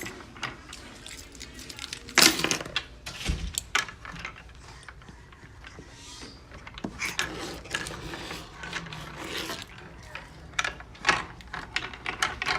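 Irregular mechanical clicks, knocks and rattles, with a louder cluster about two seconds in.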